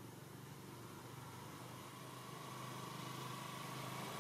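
A motor engine running off-screen with a steady low hum, growing gradually louder.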